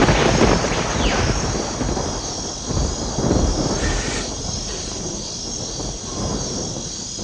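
Thunder rumbling: loud at first, then rolling and fading, with a second swell about three seconds in.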